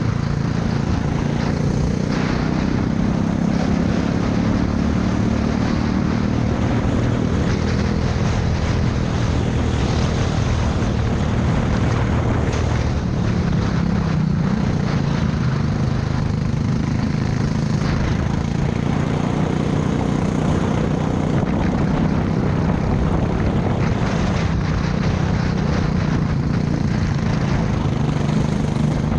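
Racing go-kart engine running hard, heard from the driver's seat, its pitch rising and falling as the kart accelerates and slows through the corners, with a steady rush of noise over it.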